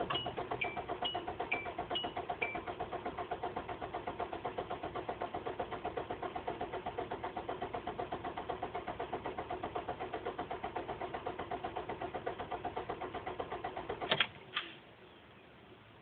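Car engine cranking on the starter motor at about six beats a second for about fourteen seconds without catching, ending with a sharp click as the key is let go; the car won't start. A repeating dashboard warning chime pings over the first couple of seconds.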